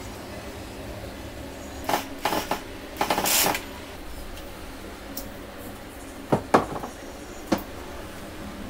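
Wooden frame pieces and tools knocked and set down on a workbench: a few separate sharp knocks and clatters, with a short scraping rattle about three seconds in.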